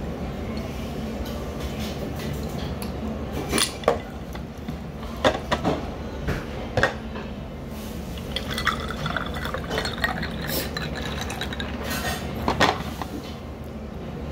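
Table sounds at a meal: several sharp clinks of glass and crockery, and water poured into a drinking glass for a few seconds in the second half, over a steady low room hum.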